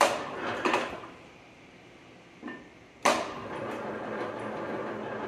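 A 1/8 inch steel plate clanking against the steel rolls of a plate-rolling machine as it is handled into position: two sharp metallic knocks at the start and a louder one about three seconds in. A steady machine hum follows the last knock.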